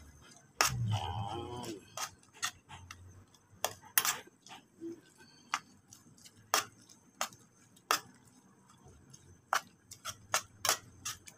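Irregular sharp clicks and knocks, about one or two a second, of a bowl and a plastic spoon tapping against a metal cooking pot as chopped dried fish is tipped into a coconut-milk stew and stirred.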